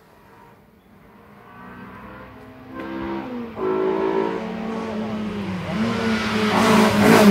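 Hill-climb race car's engine approaching up the course under hard acceleration, growing steadily louder, its note climbing and dropping a few times through gear changes, then rushing past near the end.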